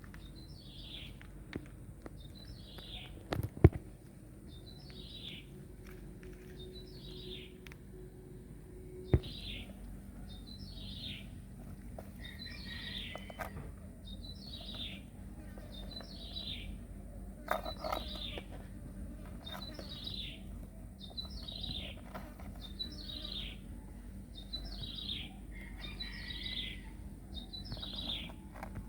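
A bird repeating one short, falling chirp about every second and a half. A sharp knock comes about three and a half seconds in and another about nine seconds in.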